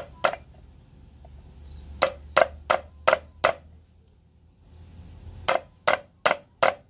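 Light hammer taps on a socket, driving a new seal into a Yamaha YZ85 water pump housing. There is one tap at the start, then a run of five quick taps, a pause, and four more near the end.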